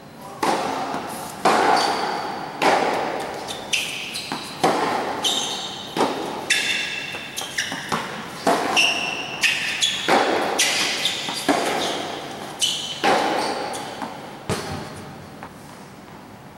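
Tennis rally on a covered hard court: sharp pops of racquet strikes and ball bounces come about once a second, echoing under the roof, with short high squeaks of shoes on the court in the middle of the rally. The rally stops about 14 seconds in.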